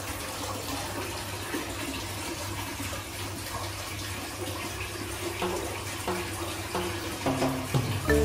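Steady rush of running water: hot-spring water pouring into the bath.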